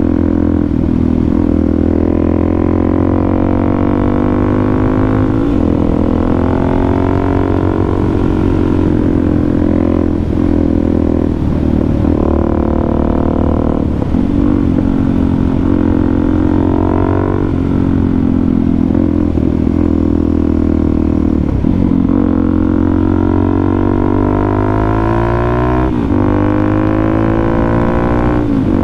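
Suzuki DR-Z400SM's single-cylinder four-stroke engine running at road speed under the rider. Its pitch climbs several times with the throttle, and each climb is broken by a brief dip.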